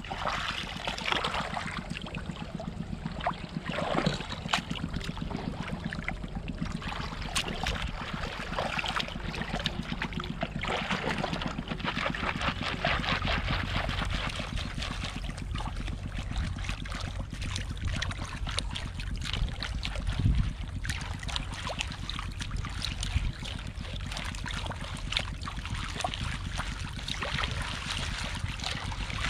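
Shallow seawater sloshing and trickling as a plastic basket of mud is swished through it to wash out clams, with a continual patter of small clicks.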